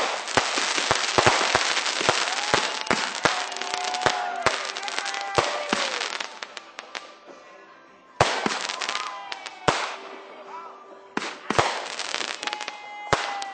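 Fireworks going off: many sharp bangs over dense crackling, with drawn-out tones that rise and fall. The barrage thins out about six seconds in, then a sharp bang about eight seconds in starts another run of bangs.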